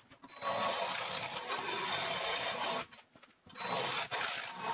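Hand-held electric drill running in two bursts of about two seconds each, separated by a short pause, its bit cutting into a steel bar clamped in a vise to widen a hole.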